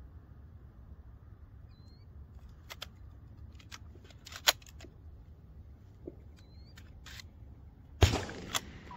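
Shotgun being handled and its action worked: a string of sharp metallic clicks, one much louder about halfway through, then a loud sharp bang with a short ring-out near the end.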